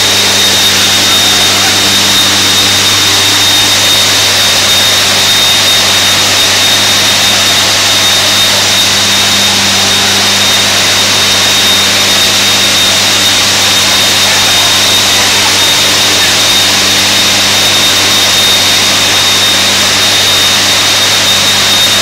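Steady, loud roar of a smelting furnace hall, with a low hum underneath and a thin high whine on top.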